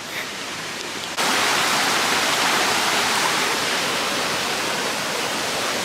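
Rushing water of a small stream running over the ground, a steady hiss that jumps suddenly louder about a second in.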